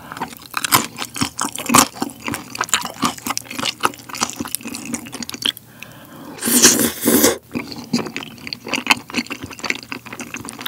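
Close-miked wet chewing and mouth sounds of tteokbokki being eaten: chewy rice cakes in thick spicy sauce, with many irregular small clicks and squishes. About six and a half seconds in, a louder wet slurp lasting about a second comes as another saucy mouthful of rice cakes goes in.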